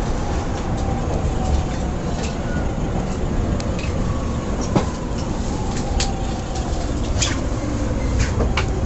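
JR East E231-500 series Yamanote Line electric train running, heard from inside the car: a steady low rumble of wheels on rail with a few sharp clicks from the track. The traction motors' whine slides slowly down in pitch as the train slows for its station stop.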